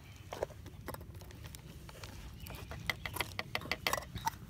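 Light metallic clicks and clinks of a titanium cook pot and its lid being handled and the lid lifted off, a few at first and then a quick run of them in the second half.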